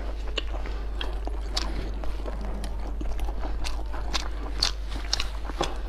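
Close-miked chewing of corn noodles with crisp raw vegetables and meat: irregular crunches and sharp wet mouth clicks, a few a second.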